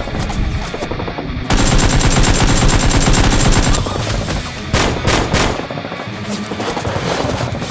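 Machine-gun fire sound effect: a fast, dense burst starting about a second and a half in and lasting a little over two seconds, then a few separate shots about five seconds in.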